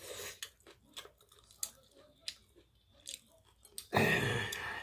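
Close-up eating sounds: wet chewing of spicy webfoot octopus and rice, with scattered small clicks of a metal fork against the plate. A louder, longer noise starts about four seconds in.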